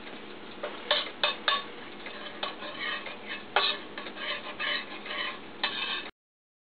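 Metal spoon clinking and scraping against a stainless steel skillet as butter is added and spread around the pan: a few sharp clinks about a second in, then a busier run of scraping and clinks, cut off suddenly about six seconds in.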